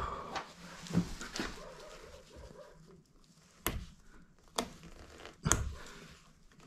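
A few short, sharp knocks and clicks of hard objects being handled, the three clearest about a second apart in the second half, the loudest a thump about five and a half seconds in.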